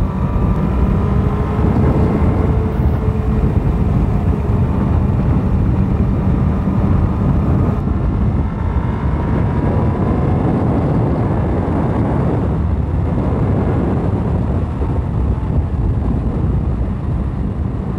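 Carbureted inline-four engine of a 1998 Yamaha YZF-R1 superbike running under way, mixed with heavy wind rush over the microphone; the engine note rises briefly about halfway through.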